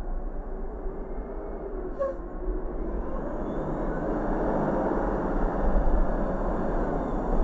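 Car driving along city streets: steady road and tyre noise with a deep rumble, growing louder over the last few seconds, and a single click about two seconds in.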